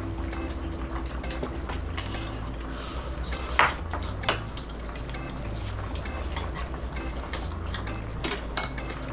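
Chopsticks and spoons clinking against a cooking pan and bowl while noodle soup is served and eaten, with a few sharp clinks, the loudest about three and a half seconds in.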